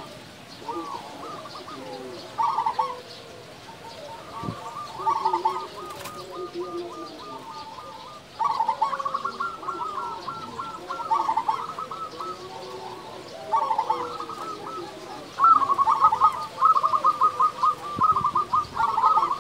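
Zebra dove (perkutut) singing: phrases of rapid staccato coos every few seconds, with the longest and loudest run in the last few seconds.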